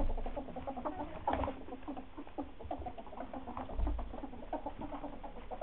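Ferrets dooking: a rapid, continuous run of soft clucking chuckles, the sound of excited ferrets at rough play. A dull bump is heard about four seconds in.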